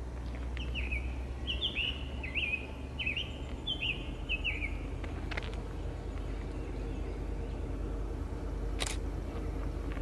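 A songbird sings a quick run of chirping notes for about four seconds over the steady low rumble of the approaching EMD F40PH-2 diesel locomotive. A sharp click comes near the end.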